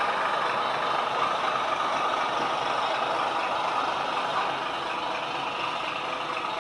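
H0-scale model freight wagons rolling past on the track: a steady rattle of small metal wheels on the rails that slowly fades.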